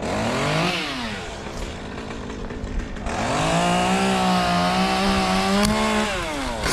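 Chainsaw revved twice: a short blip that falls straight back to idle, then about three seconds in it is brought up to high speed and held there for around three seconds before dropping back to idle near the end.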